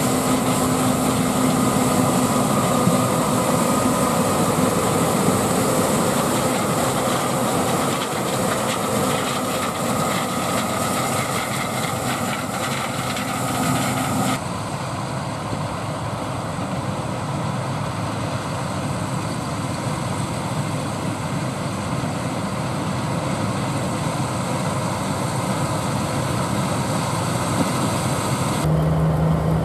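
John Deere 9570 STS combine harvesting corn: engine and threshing machinery running steadily, with a steady hum and whine. About halfway the sound drops suddenly in its higher part, where the combine is farther off.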